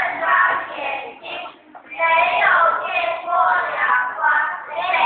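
A group of primary-school children singing a song together, with short breaks between phrases.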